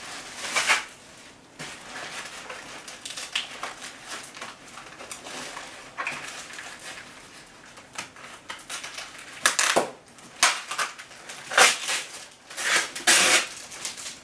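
Clear plastic packaging crinkling and rustling in irregular crackles as it is pulled open by hand, with louder bursts about a second in and again in the last few seconds.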